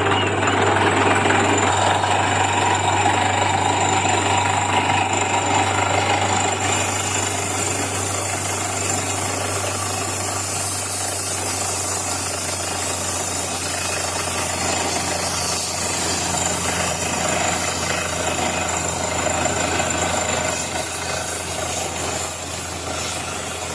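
Heavy diesel machinery running steadily with a constant low drone. It comes up loud at the start, a steady high hiss joins about seven seconds in, and the level eases a little near the end.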